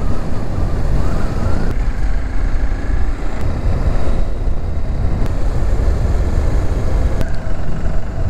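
Bajaj Dominar 400 motorcycle running at road speed on a wet road: steady engine and tyre noise under heavy wind rumble on the microphone.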